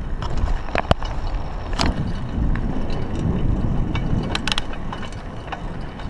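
Raleigh Ascent mountain bike rolling over a rough dirt track, with a steady low rumble of tyres and wind on the chest-mounted camera. Sharp rattles and clicks come as the bike jolts over bumps: twice about a second in, once near two seconds, and a cluster around four and a half seconds.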